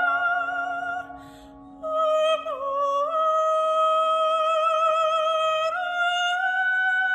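Classical soprano singing long sustained notes, with vibrato on the first one, over a low held note from the accompanying ensemble. The voice breaks off briefly about a second in, comes back on a new note that slides down and recovers, and steps up to a higher note near the end.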